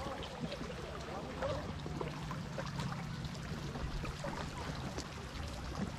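Water lapping and splashing around a kayak, with small trickling ticks over a low steady drone.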